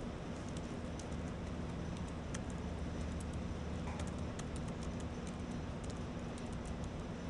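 Computer keyboard being typed on: a scatter of light key clicks in short runs, over a steady low room hum.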